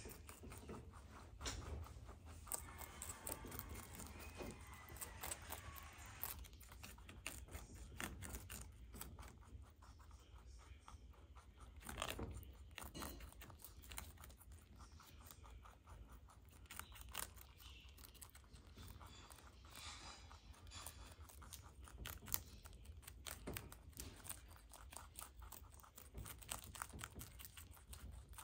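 Two baby rabbits munching cabbage leaves: faint, fast crunching and tearing, a dense run of tiny chewing clicks with now and then a louder snap.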